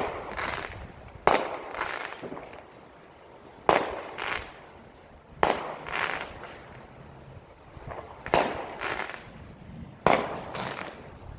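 Fireworks exploding: about seven sharp bangs at irregular intervals, each followed by a short echoing tail.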